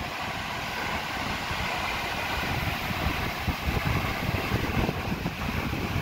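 Steady rush of a tall waterfall plunging into a rocky pool, with wind buffeting the microphone in uneven low gusts.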